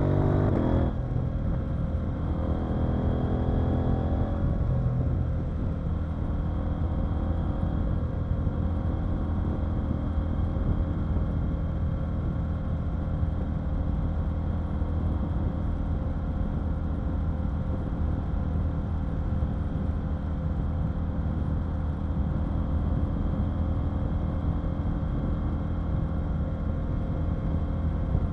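KTM 890 Duke R's parallel-twin engine heard from on board the moving bike: the engine note drops just under a second in, climbs briefly a couple of seconds later, then runs steadily at cruising speed.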